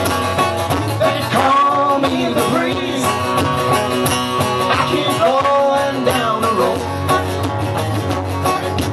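Live acoustic band playing: strummed acoustic guitars over a bass guitar, with a man singing. The voice comes in about a second in and stops near the seven-second mark while the guitars and bass carry on.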